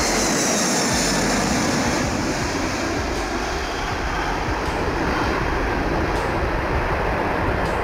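Boeing 747 Dreamlifter's four turbofan jet engines, a loud steady roar as it climbs out, with a high whine falling in pitch over the first two seconds.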